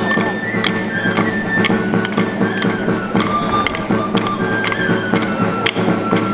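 Traditional folk music: a high melody in long held notes that step from pitch to pitch, over fuller lower instruments and sharp percussive taps.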